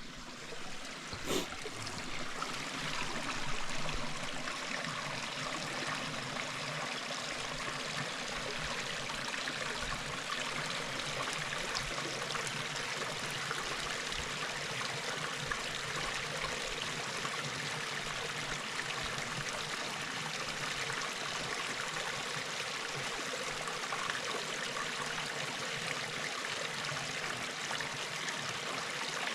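Mountain stream rushing steadily over rocks, a soothing, even rush of water. A single brief knock sounds about a second in.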